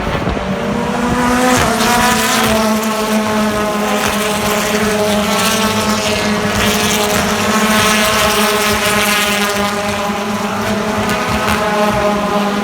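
BTCC touring car's 2.0-litre turbocharged four-cylinder engine running at racing speed. Its pitch climbs over the first second and a half, then it holds a steady note that drifts only slowly.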